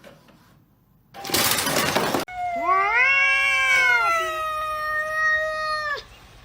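A cat giving one long, drawn-out meow that rises at the start and is held for nearly four seconds before cutting off, preceded by about a second of loud hiss-like noise.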